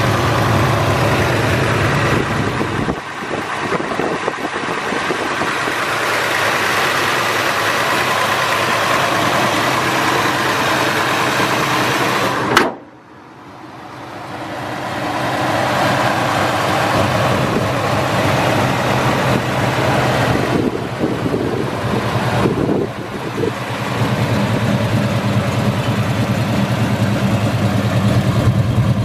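Chevrolet 454 big-block V8 idling steadily. The sound cuts off abruptly about halfway through, then fades back up and settles into the same idle.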